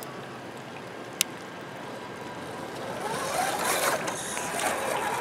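Shallow stream running over rocks, with a single sharp click about a second in. From about three seconds in, a scale RC crawler's electric motor and drivetrain whine louder, rising and falling in pitch as the truck works its way down a dirt bank.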